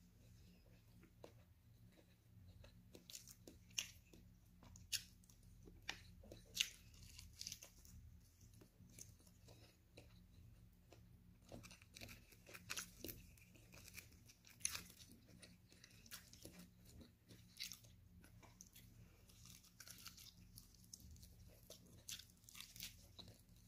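Faint close-up eating sounds: a person chewing boiled broccoli and grilled chicken, with irregular mouth clicks, a few louder ones a few seconds in.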